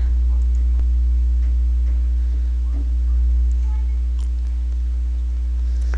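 Steady low electrical hum with a couple of higher steady overtones, and a few faint clicks scattered through it.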